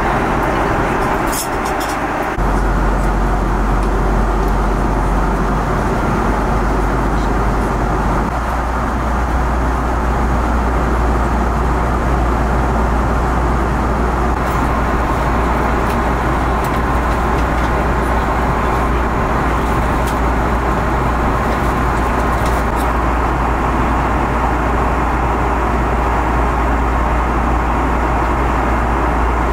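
Steady roar of an airliner cabin: engine and airflow noise with a deep rumble underneath, which steps up suddenly about two seconds in.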